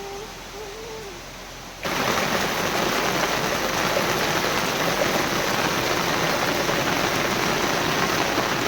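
Heavy rain falling, a steady dense hiss that starts abruptly about two seconds in.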